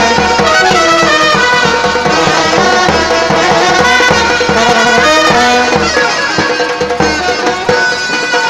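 Indian brass band playing a melody on saxophones and trumpets over a steady drum beat.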